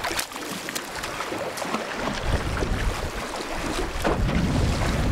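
Wind buffeting the microphone over choppy water slapping at a small boat, with a few short, sharp splashes.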